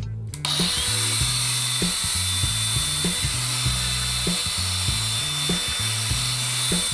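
DeWalt DCG409 18V XR brushless angle grinder switched on about half a second in and running free with no load: a steady high-pitched whine over a hiss.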